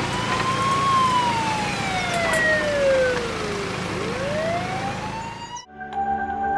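Police car siren wailing: a slow rise, a long fall in pitch, then a rise again. It cuts off suddenly about five and a half seconds in, and steady musical tones begin.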